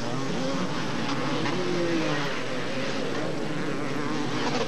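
Several 250cc two-stroke motocross bikes racing, their engines revving up and down at overlapping, shifting pitches.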